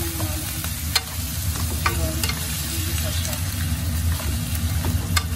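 Jackfruit chunks and small fish frying in a nonstick pan while being stirred with a wooden spatula: a steady sizzle with a few sharp clicks of the spatula against the pan.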